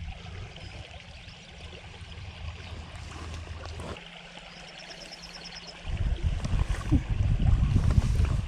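Small stream flowing and trickling as a steady rush. A short, high repeated trill sounds a little past the middle. Loud low rumbling buffeting fills the last two and a half seconds.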